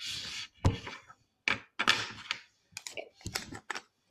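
Irregular clicks, taps and short rustles from handling plastic slime tubs and their boxes, the loudest about two-thirds of a second in.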